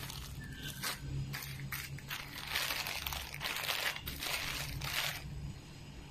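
Clear plastic packaging bags crinkling and rustling as they are handled, in a string of bursts that are busiest in the middle and die down near the end.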